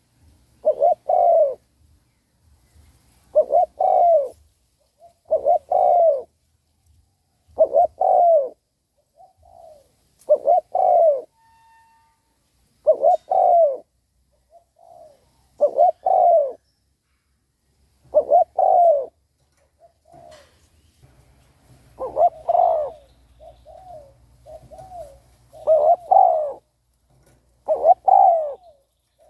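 Spotted dove cooing over and over, one loud two-part coo phrase about every two seconds, with softer short coos slipped in between some phrases.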